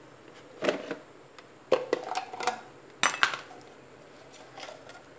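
Kitchen utensils and dishes clinking and knocking: several sharp clinks over about three seconds, some with a brief ring.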